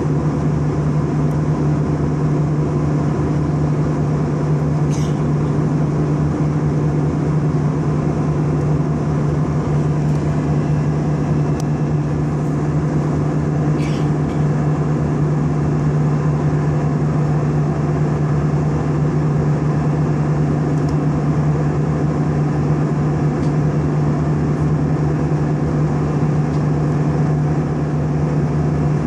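Steady cabin noise inside an Airbus A320 in flight: the jet engines' drone and the rush of air, with a constant low hum.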